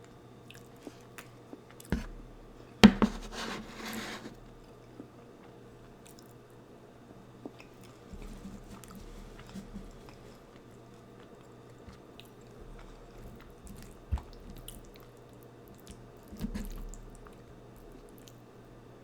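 Close-miked eating: chewing and wet mouth sounds, with one loud crunchy bite about three seconds in that crackles for about a second, typical of biting into a homemade tortilla chip.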